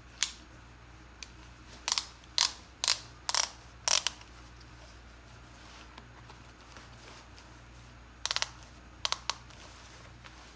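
Ratchet belt buckle clicking: sharp clicks, about six in the first four seconds, then a quick run of several clicks near eight seconds and two more about a second later.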